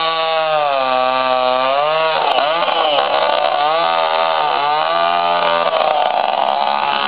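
Two-stroke chainsaw cutting into a large rain tree trunk. Its engine pitch drops about a second in, then dips and wavers unevenly as the chain bogs under load in the wood.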